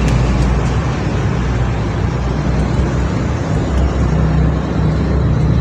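A steady low motor rumble with no distinct events.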